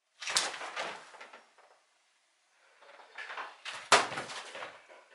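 Laptop and papers being handled on a table: rustling and light bumps in two short bouts, with one sharp knock about four seconds in as the laptop lid is shut and the stack of envelopes is taken up.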